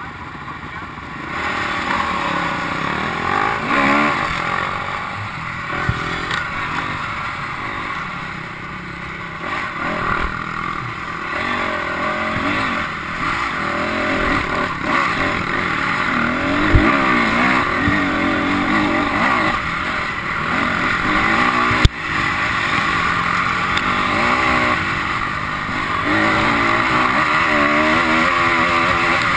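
Dirt bike engine idling, then pulling away about a second and a half in and revving up and down with the throttle as the bike rides a rough dirt trail, with wind noise on the bike's own camera. A single sharp knock about three quarters of the way through.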